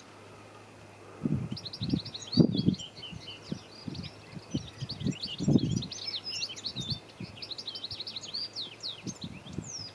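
Rapid, tinkling twittering song of a small group of finches, taken for European goldfinches, starting about a second and a half in and continuing as a dense run of quick high chirps. Several short low thumps sound underneath.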